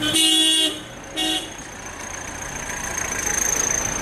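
Vehicle horns tooting: one toot of under a second, then a short second toot about a second later. Vehicles then drive slowly past, with a thin high steady whine over the engine and traffic noise.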